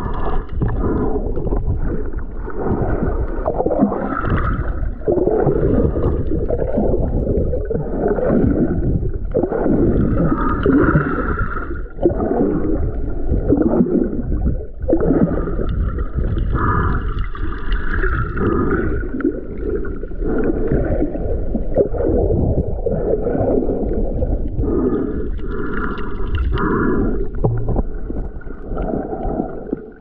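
Muffled underwater water noise, sloshing and gurgling as heard by a camera submerged in the sea, swelling and fading every few seconds.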